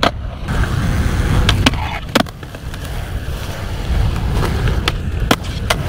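Skateboard wheels rolling over smooth concrete in a steady low rumble, with several sharp clacks from the board.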